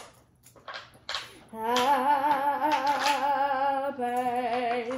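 A few light taps of candy on the table, then a voice singing a long held note with a wide vibrato, changing note about four seconds in.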